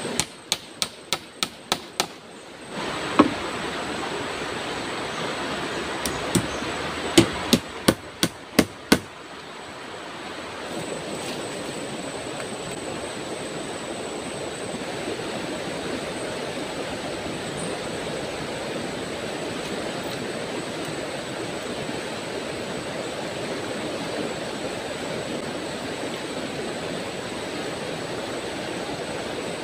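Sharp knocks of wood being struck during the treehouse building: a quick run of about eight at the start, a single one a second later, and another run of about six a few seconds later. After that only the steady rush of flowing river water.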